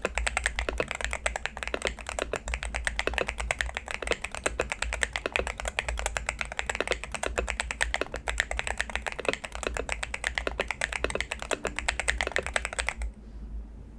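Fast, continuous typing on an AULA Hero68HE Hall-effect magnetic-switch keyboard fitted with Jade King switches, many keystrokes a second, stopping about a second before the end.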